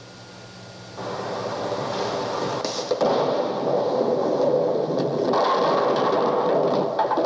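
A recorded sound effect played back from tape on a 1976 Sony TC-520CS stereo cassette player: after a second of faint hum and hiss, a loud, dense rumbling and rattling noise with scattered clicks begins suddenly and keeps going.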